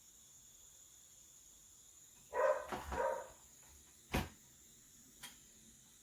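A dog barks twice in the background, about two and a half and three seconds in, followed by two sharp clicks a second apart.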